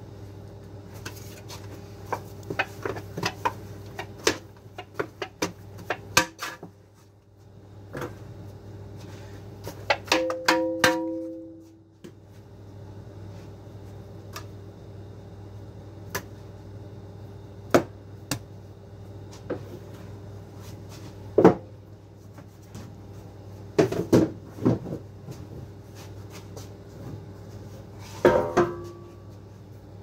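Dough being portioned by hand on a platform scale: scattered knocks and clatters of a metal dough scraper and dough against a plastic dough tub and the scale. There are two short metallic rings, one about ten seconds in and one near the end. A steady low hum from the bakery's machines runs underneath.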